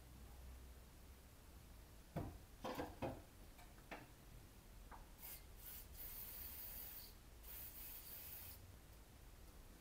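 A few light knocks and clicks of handling about two to three seconds in, then an aerosol can sprayed in hissing bursts from about five seconds in: two short puffs, then two longer sprays of about a second each.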